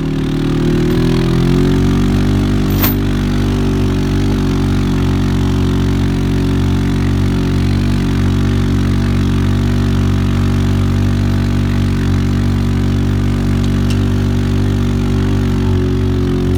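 Off-road vehicle's engine running under steady throttle while driving, its pitch rising over the first second or two as it speeds up, then holding steady. A single short click about three seconds in.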